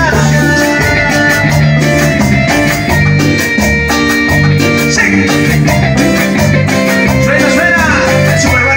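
Live band playing Latin dance music over a steady beat: bass guitar, keyboard with sustained chords, and percussion on timbales and drum kit.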